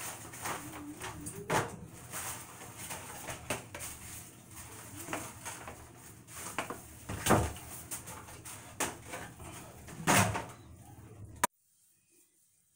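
Rustling and crinkling of a clear plastic wig package being handled, with a few heavier knocks and bumps. The sound cuts off abruptly near the end.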